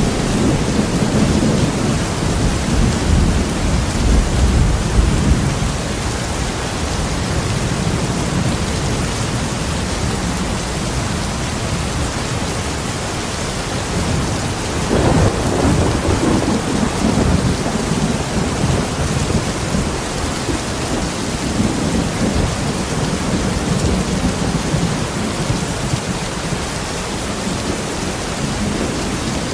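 Steady rain in a thunderstorm, with low rolling thunder in the first few seconds and again about halfway through.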